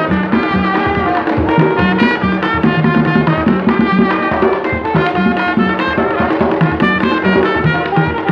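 Live Haitian folk music from tall hand drums and brass horns: a busy, steady drum rhythm with the horns playing held notes over it.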